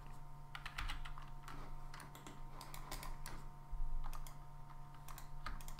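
Irregular clicking of a computer keyboard and mouse as someone works at a computer, with a steady faint electrical hum underneath.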